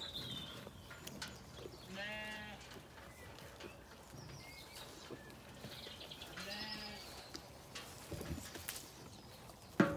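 Zwartbles sheep bleating twice, a short wavering bleat about two seconds in and another just before seven seconds.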